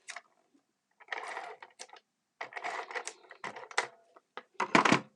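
Paper and card pieces being handled and rustled on a craft table, in three bursts, ending with a louder clack near the end as a piece is set down.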